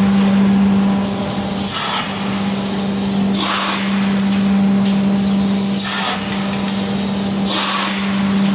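Automatic paper-pulp egg tray forming machine running: a steady hum with a hiss that recurs four times, roughly every two seconds.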